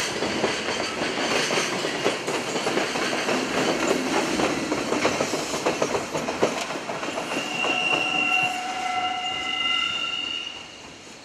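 A JR Freight container train rolls past, its wheels clattering over rail joints as the trailing EF210 electric locomotive goes by. From about seven seconds in, a high squeal of several held tones rises over the rumble. Near the end the sound drops away quickly as the train recedes.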